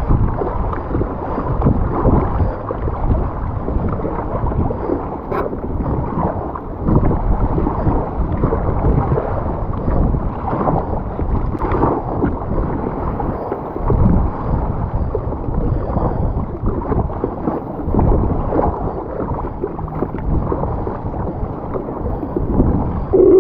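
Sea water rushing and splashing along a surfski paddled downwind through big ocean swells: an uneven wash of noise that swells and eases as the boat runs on the waves.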